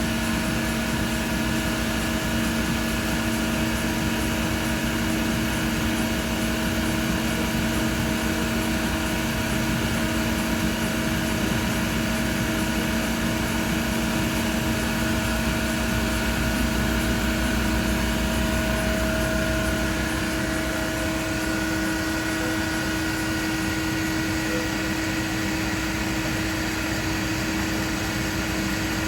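Cincinnati CH 2500 horizontal machining center running, a steady mechanical hum with several held tones over a noise bed. About 20 seconds in, the deepest rumble and one of the lower tones drop away, and another tone stops a few seconds later, while the rest runs on.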